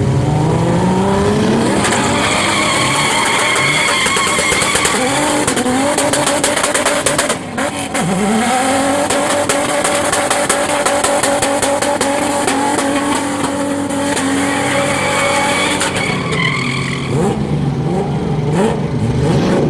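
Car engine revving hard and held at high revs while the tyres squeal and skid in a drift. The revs drop and climb again about halfway through, and once more near the end.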